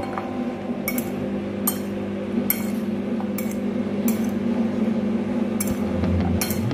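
A metal fork clinking against a ceramic plate while tossing soaked bread cubes, a sharp clink roughly every second.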